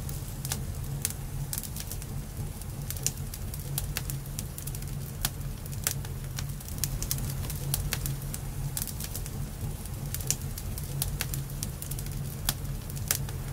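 Wood fire crackling, with irregular sharp pops and snaps over a steady low rumble.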